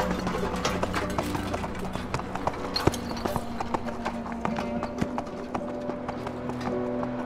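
Rapid hoofbeats of a running pack donkey clip-clopping, over background music.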